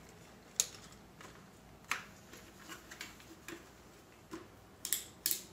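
Plastic clicks and light knocks from a Trimble XR10 hard hat with HoloLens 2 as it is handled and pulled onto the head: a handful of sharp, irregular clicks, the loudest two near the end.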